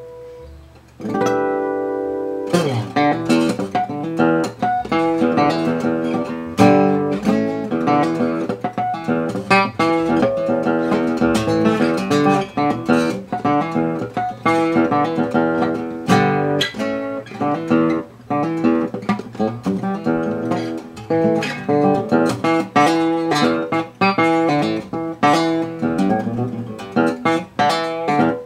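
1945–46 Gibson LG-2 acoustic guitar being played: a chord rings out about a second in, then a steady run of picked notes and strums.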